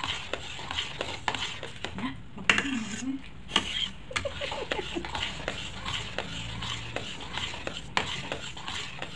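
A spatula stirring and scraping a thick maja blanca mixture (coconut-milk and cornstarch pudding) in an aluminium pot, with frequent light, irregular knocks against the pot.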